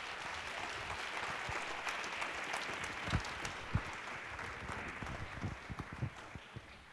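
Audience applauding after a talk, a steady patter of many hands clapping that fades away near the end.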